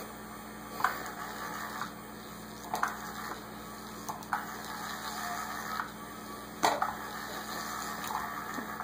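The Cat's Meow battery-powered cat toy's motor whirring in short bursts, each starting with a click and running about a second, five times, as it spins its wand around under the base.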